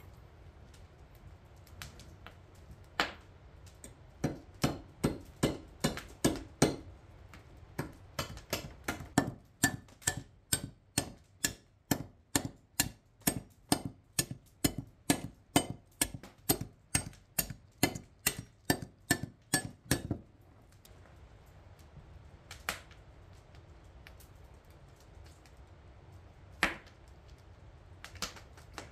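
A knife scraping the exposed bone of a beef shank clean: a quick run of short, sharp strokes, about two or three a second, that stops about twenty seconds in, then a few single knocks.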